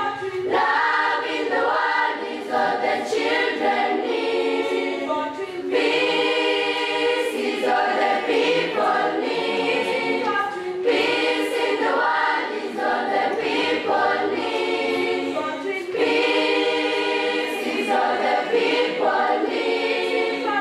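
A choir of girls' voices singing a cappella, in sung phrases a few seconds long.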